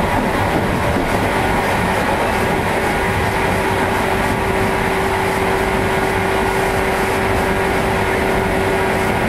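JNR 115 series electric multiple unit running along the line, heard from on board: steady rail and running noise, with a steady humming tone coming in about three seconds in.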